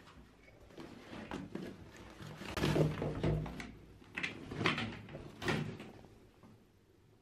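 Clothes and leather handbags being rummaged through and lifted in a plastic shopping basket: rustling with several knocks and thumps, loudest about two and a half to three and a half seconds in, then a few more knocks before it quiets.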